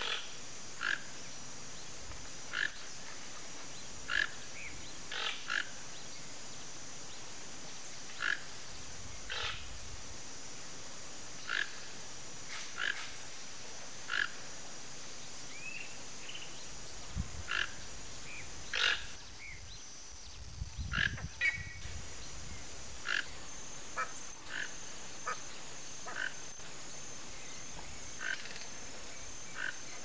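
Short, sharp animal calls repeated irregularly, about one every one to two seconds, over a steady high-pitched hum. A couple of brief low rumbles come in just past the middle.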